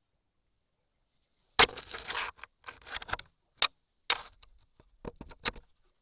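Irregular sharp clicks and short scraping rustles in a few separate bursts, beginning about one and a half seconds in.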